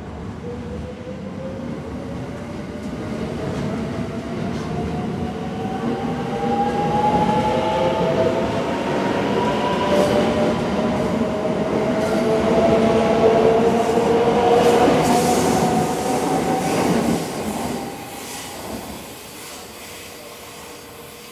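JR West 681 series electric train pulling away and accelerating, its inverter and traction-motor whine rising steadily in pitch, with wheels clicking over the rail joints. The sound builds as the cars pass and falls away abruptly as the last car goes by, about three-quarters of the way through.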